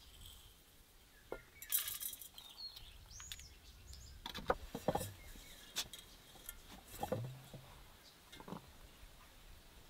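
Black peppercorns and bay leaves tipped from a small clay bowl into a large glass jar, a scatter of light clinks and patters against the glass, followed by a few separate knocks and clicks as the jar is handled.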